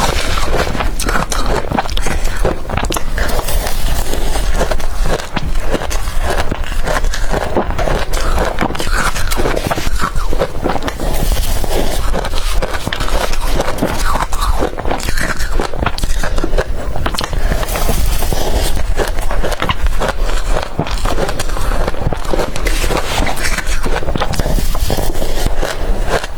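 A person biting and chewing crushed blender ice, with dense crunching and crackling that runs on without a break.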